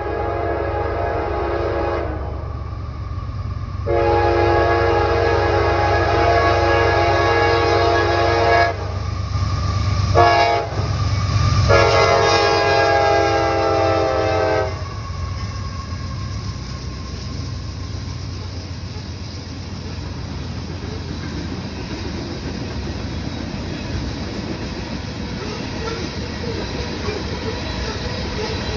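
CSX freight locomotive's multi-chime air horn sounding the grade-crossing signal: the end of a long blast, a second long blast, a brief toot and a final long blast. Then the steady rumble and wheel clatter of loaded freight cars rolling past.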